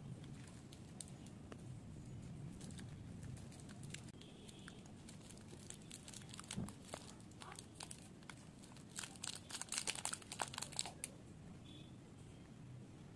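Plastic candy wrappers crinkling as a gloved hand stirs through a pile of individually wrapped sweets. A denser, louder run of crinkling and tearing comes a few seconds before the end as one wrapper is pulled off a toffee.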